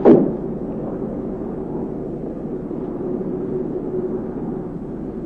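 Steady machinery drone: an even rushing noise with a continuous low hum, opened by one sudden loud thump.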